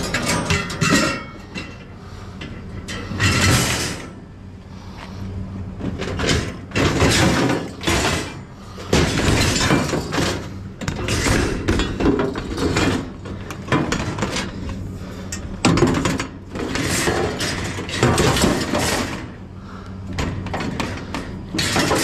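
Coated wire dishwasher racks clattering and scraping against each other and the metal of a truck bed as they are handled, in repeated bursts of rattling over a low steady hum.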